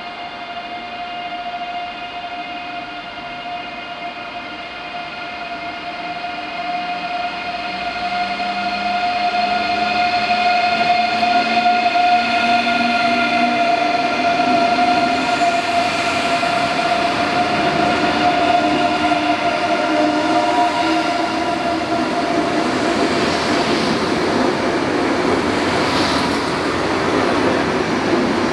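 German DB ICE 3 high-speed electric train approaching along the platform and passing close by, with a steady electric whine that grows louder over the first ten seconds or so. In the second half, rolling and wheel noise with a few clicks rises over the whine as the cars go past.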